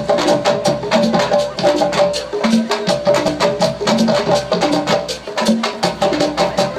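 Live percussion ensemble playing a fast, dense drum groove, with sharp wood-block-like strikes and a low pitched drum figure that comes round about every one and a half seconds.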